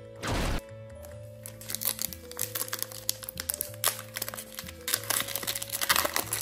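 Pokémon booster pack foil wrapper crinkling: one short, loud crinkle about a quarter second in, then a run of small crackles and clicks as the pack and cards are handled, over steady background music.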